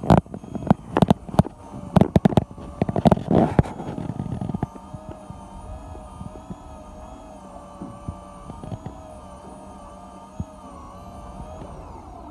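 Several loud knocks and clatters over the first four seconds, then an electric fishing reel's motor whining steadily as it winds in line against the pull of a fish, its pitch wavering with the load. The whine drops away near the end as the reel stops.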